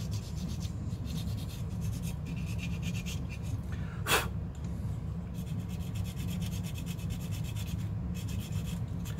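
Quick scratchy rubbing strokes against the painted plastic of a model kit, wearing the paint off along its corners to weather it. One short sharp noise comes about four seconds in, over a steady low hum.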